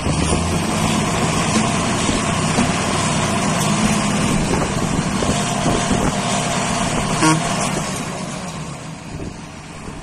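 John Deere tractor diesel engines running steadily under load, with a brief beep about seven seconds in; the engine sound drops somewhat near the end.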